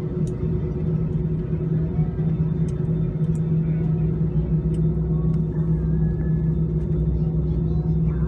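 Airbus A320 cabin sound over the wing: the jet engines' steady hum with two fixed tones over a low rumble as the airliner taxis onto the runway.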